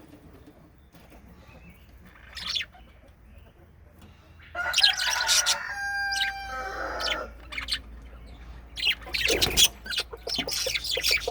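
Budgerigars chirping and chattering in short bursts: one brief call about two seconds in, then a run of chirps with a clear whistled note from about halfway, and more chattering near the end.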